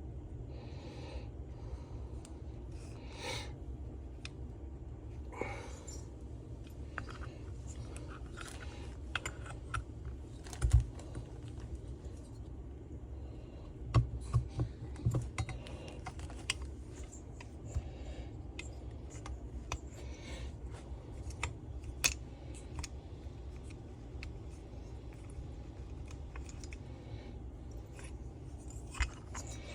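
Scattered clicks and light knocks of hand tools and small two-stroke engine parts being handled and fitted during reassembly of a McCulloch leaf blower's bottom end. There are a few louder knocks about 11 seconds in and a cluster around 14 to 15 seconds, over a steady low hum.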